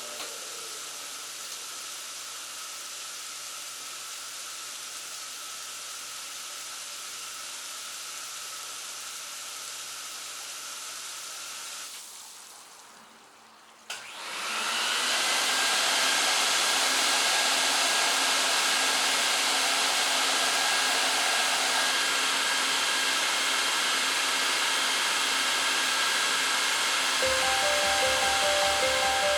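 Steady whir of a motor-driven blower, typical of a rug-cleaning vacuum or dryer. It dies away about twelve seconds in and starts again two seconds later with a click, spinning up to a louder, higher-pitched steady run. Music comes in near the end.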